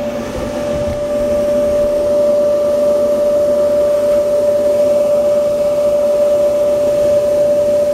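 Frigidaire dryer's drive motor and blower running under power on a bench test, a steady hum with one strong even tone, showing the motor works.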